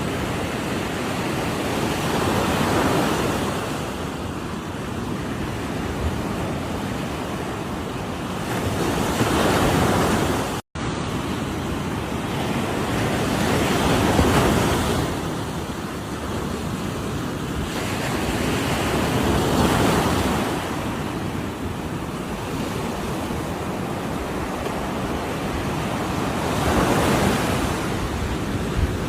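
Ocean surf: a continuous rush of breaking waves, swelling louder as a wave crashes about every five to seven seconds. The audio cuts out for a split second about ten seconds in.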